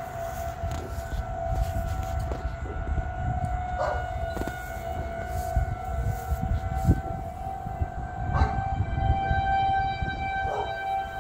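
Federal Signal 2001-SRN rotating electromechanical outdoor warning siren sounding a steady alert tone, holding one pitch with overtones, for a severe thunderstorm warning.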